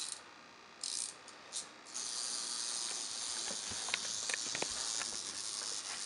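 Fridge Rover magnetic wind-up toy: its clockwork is wound in a few short rasping bursts, then from about two seconds in its spring motor whirrs steadily as it crawls up the steel fridge door, with a few faint clicks.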